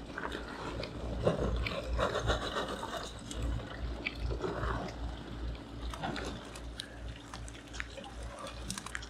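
Charcoal briquettes poured from a bag, clattering into the steel firebox of an Oklahoma Joe offset smoker, with rain falling and dripping.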